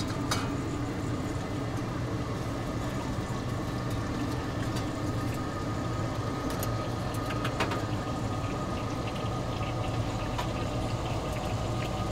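A steady mechanical hum with a faint high whine, broken by a few light clicks and knocks.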